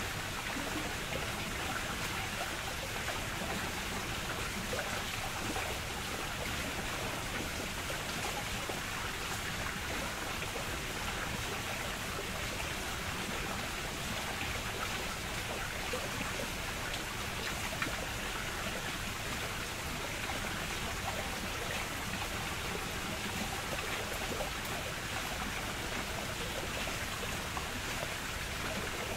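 Steady rush of running garden water, even and unbroken, with one brief click about 18 seconds in.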